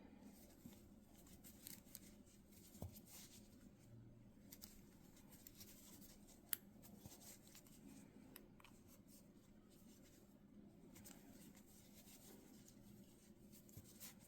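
Near silence with faint rustles and small clicks of a crochet hook working yarn through single crochet stitches, and one sharper tick about six and a half seconds in.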